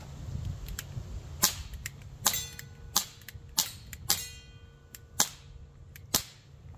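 Barra Schofield CO2 air revolver firing a string of shots, sharp cracks about a second apart, with the steel target ringing after some of them.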